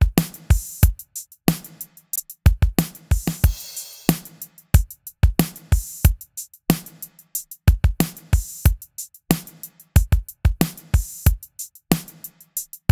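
A drum kit loop of kick, snare and cymbals plays as a steady groove through a Chandler-style compressor plugin (Acustica Audio Coffee) set to its third limiter mode. It is heavily compressed and very aggressive.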